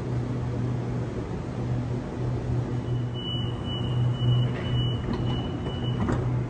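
Double-deck electric train standing at the platform with a steady hum. About three seconds in, its door-closing warning beeps sound in a quick repeated run for about three seconds. The doors slide shut near the end.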